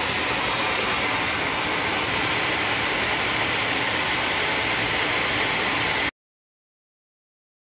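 Wet-and-dry vacuum cleaner running steadily at minimum power, its hose sucking up water seeping in at the foot of the wall. The sound cuts off abruptly about six seconds in.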